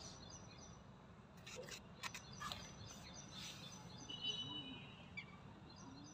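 Faint outdoor background with a few distant bird chirps and high steady tones, plus a handful of soft clicks about a second and a half to two and a half seconds in.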